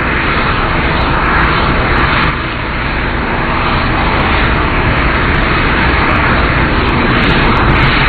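Shuttle Carrier Aircraft, a modified Boeing 747, with its four Pratt & Whitney jet engines running: a loud, steady jet noise that slowly grows louder, dipping briefly a couple of seconds in.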